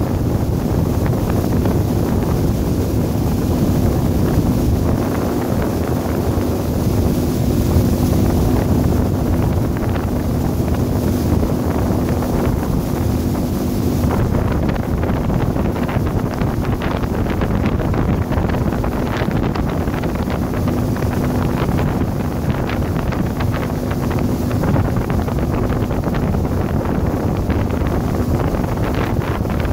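Wind buffeting the microphone over a motorboat running at speed across the water, its engine a steady low hum under the rush of wind and water.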